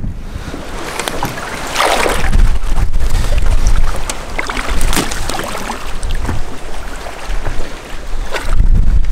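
Water splashing and sloshing in irregular surges, the loudest about two seconds in, with wind buffeting the microphone as a low rumble.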